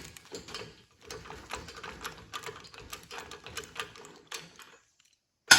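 Ratchet clicking rapidly and unevenly as it works the screw of a Mastercool AC hose crimper, backing it off after a crimp. A loud metallic clank comes near the end.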